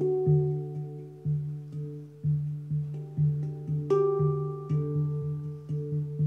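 A Hang, the steel handpan, being played with the hands: a quick, steady pulse of struck low notes, with higher notes ringing on over them and a brighter, louder high note struck about four seconds in.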